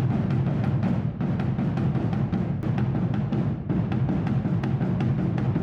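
Massed snare drums and bass drums (bombos) of a tamborada beating together in a dense, continuous roll, with a deep booming low end under many overlapping strokes.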